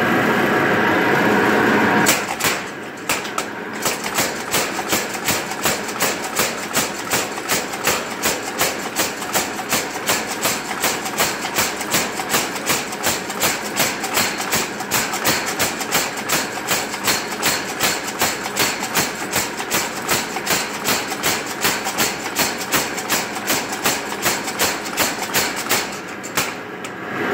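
Mechanical power hammer: the motor and drive run steadily, then about two seconds in the ram starts striking a red-hot bar of high-carbon steel in a long, even run of rapid blows, drawing the bar out. The blows stop near the end and the drive runs on.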